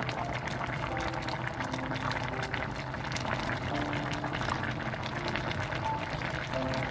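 Thick spicy chicken stew bubbling at a steady boil in a pot, a dense run of small irregular bubble pops.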